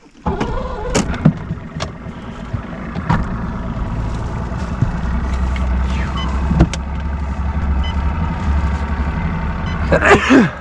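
A boat's motor running steadily with a low hum, with several sharp knocks over it during the first few seconds.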